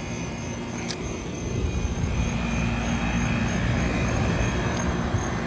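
Outdoor heat pump unit running: a steady compressor hum with a fan whirring over it. It gets a little louder about two seconds in.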